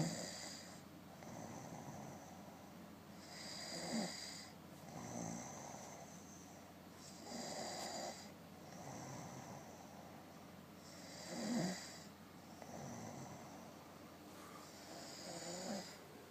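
Snoring in slow, regular breaths: a louder snore about every four seconds, with a softer breath between each.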